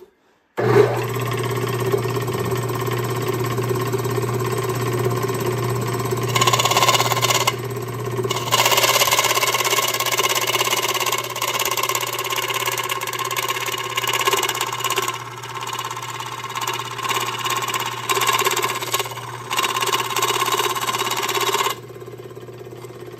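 A 1950s Delta Rockwell Homecraft scroll saw starts up about half a second in and runs with a steady motor hum. Its reciprocating blade cuts through aluminum plate, and the cutting noise rises and falls as the plate is fed. Near the end the cutting stops and the saw runs on more quietly.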